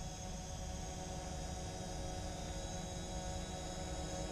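Drone propellers whining steadily as the aircraft flies back in toward the pilot to land, growing slightly louder, over a low rumble.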